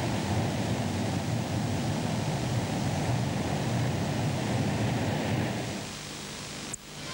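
Steady rushing outdoor noise with a low rumble, like wind or distant surf. It drops a little near the end and is broken by a single sharp click just before the end.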